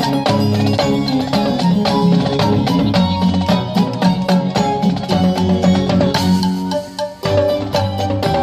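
Marching drumline on snare, tenor and bass drums, playing in rhythm over a pitched musical backing track. About six seconds in the music briefly thins out, then comes back in full about a second later.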